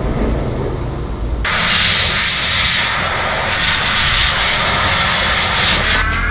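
A loud steady hiss starts suddenly about a second and a half in, over a low machine rumble, and cuts off near the end.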